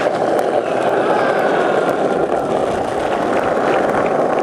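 Skateboard wheels rolling on asphalt: a steady, loud rumble.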